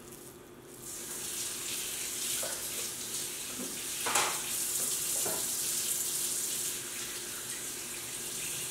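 A steady watery hiss starts about a second in, with a few soft knocks partway through.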